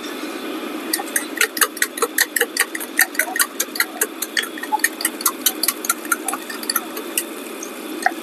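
Spoon beating egg inside a steel tumbler: quick metallic clinks, about four a second, over a steady low rush.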